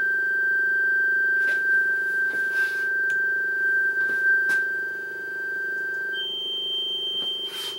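Pure sine test tone played from a computer: a steady G6 (around 1.6 kHz) that jumps up an octave to G7 about six seconds in. A steady low hum runs underneath.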